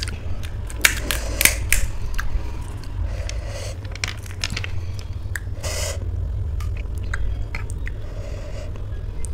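Crisp panipuri shells crackling as they are broken open, then soft squishing and scraping as they are stuffed with chaat and spooned full of ghugni. The sharpest cracks come in the first two seconds.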